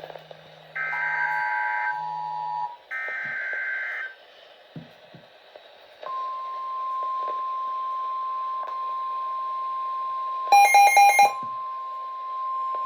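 Emergency Alert System tornado-warning activation: two buzzy, roughly one-second bursts of EAS header data tones, then, about six seconds in, a steady single-pitch alarm tone near 1050 Hz, the NOAA Weather Radio warning alarm. Near the end, four rapid, loud, shrill beeps sound over the alarm tone.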